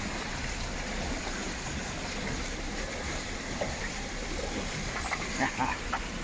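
Steady rushing and splashing of water along the hulls of boats under way. A few short, slightly louder sounds come about five seconds in.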